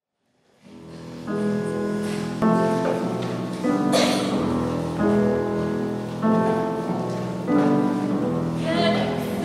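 Girls' choir singing a slow passage in sustained chords, moving to a new chord about every second and a quarter. The singing comes in softly about half a second in and swells to full strength within the next second.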